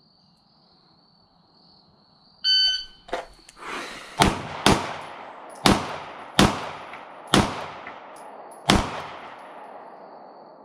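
A shot timer beeps once about two and a half seconds in, then a semi-automatic pistol fires six shots over about four and a half seconds, each followed by a decaying echo.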